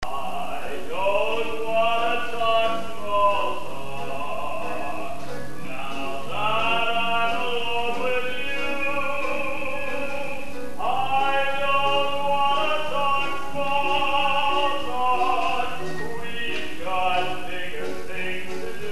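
Live stage-musical song: a singing voice in long held phrases with vibrato, over a soft instrumental accompaniment.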